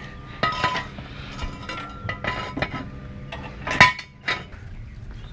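Metal objects clinking and clanking as they are handled and set down: about half a dozen sharp, ringing strikes, the loudest a little under four seconds in.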